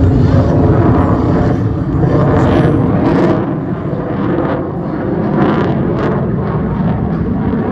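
Loud jet engine noise from a fighter jet flying a display pass overhead, a deep continuous rumble that eases slightly after the first few seconds.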